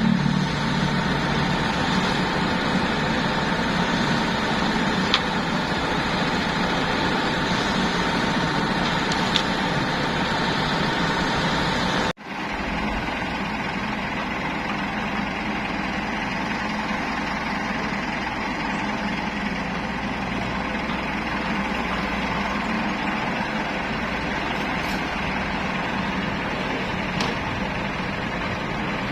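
Diesel engines of a Komatsu PC78US excavator and a mini concrete mixer truck running steadily while the excavator loads the mixer. A steady whine sits over the engine noise at first; about twelve seconds in the sound cuts out for an instant and comes back.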